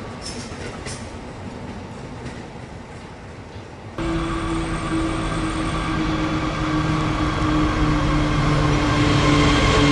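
Container wagons of a freight train rolling past, with a few wheel clicks over the rail joints. About four seconds in, the sound changes abruptly to the steady drone of approaching diesel locomotives, growing louder.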